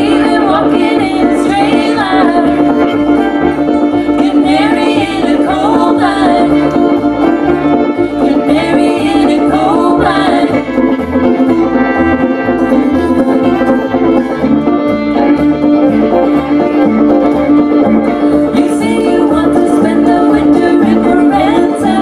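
Live bluegrass string band playing: women singing over banjo and a steadily plucked upright bass.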